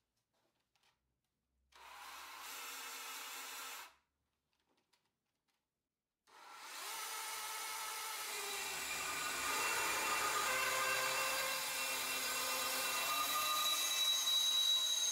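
Homemade portable metal-cutting band saw, driven by a cordless drill, runs for about two seconds, stops, then starts again about six seconds in and saws through a square metal tube: a steady grinding hiss of the blade in metal that slowly grows louder, with a high whine coming in near the end.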